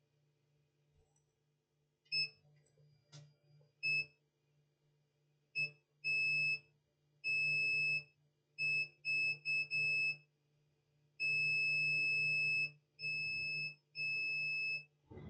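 A multimeter's continuity beeper sounds in a dozen irregular steady high-pitched beeps, from short blips to about a second and a half long, as the probes touch a capacitor on a solar charge controller board. The beeping signals a near short across the part under test. A faint steady low hum runs underneath.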